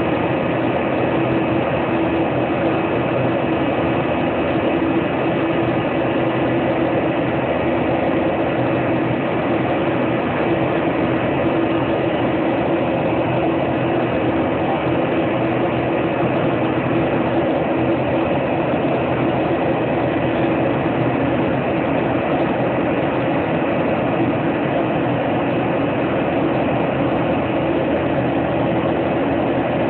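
Steady drone of an airliner in cruise heard from inside the cabin: engine noise and rushing air at an even level, with a steady hum in it.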